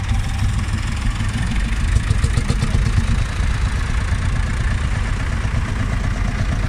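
Engines of vintage Ford tractors, a Ford 5000 and a Ford 7000 among them, running steadily close by as the tractors move off one after another at walking pace.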